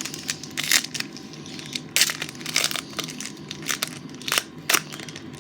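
Foil wrapper of a trading-card pack being crinkled and torn open, with irregular crackles and several sharp snaps.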